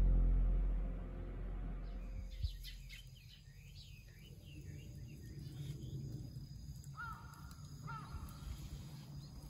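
Background music fading out, giving way to small birds chirping and twittering outdoors over a low, steady background rumble. A few short repeated calls come about a second apart near the end.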